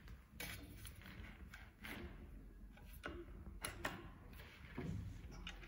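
A few faint clicks and light knocks as a planer's bridge guard over the cutter block is tilted and set by hand, with a low thump near the end.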